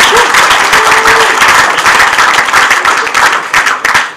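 Audience applauding, a loud, dense clapping that thins out and dies away at the end.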